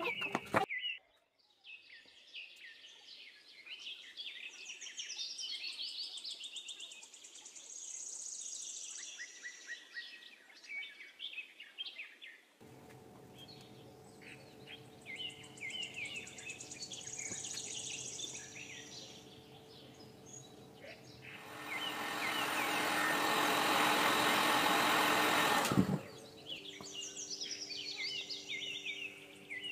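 Birds chirping and twittering in the background, with a steady low hum coming in after about 12 seconds. Near the end a loud, even rushing whir runs for about four seconds, then cuts off.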